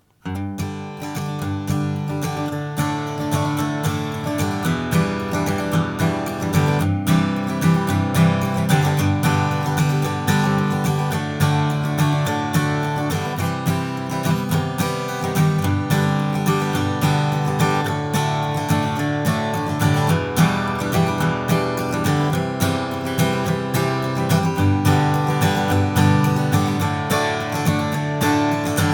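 Martin Custom Shop Style 18 steel-string acoustic guitar with flamed mahogany top, back and sides, strummed in a steady rhythm, the chords ringing on between strokes.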